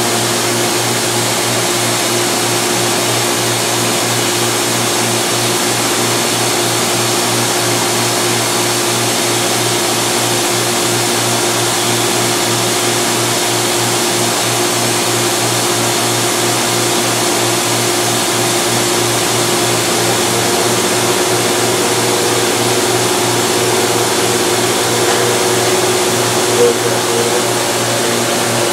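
Studer S145 CNC cylindrical grinder running: a steady machine hum with a steady mid-pitched tone, a second, slightly higher tone joining about two-thirds of the way in, and a couple of brief knocks near the end.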